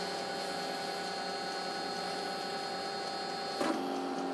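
Steady electrical hum and whine from a switched-on Emco Compact 5 CNC lathe, with a short knock about three and a half seconds in.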